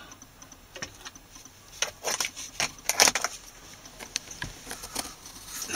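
A string of irregular sharp clicks, taps and light metallic clatter from cables, a plug and metal fittings being handled, the loudest about three seconds in.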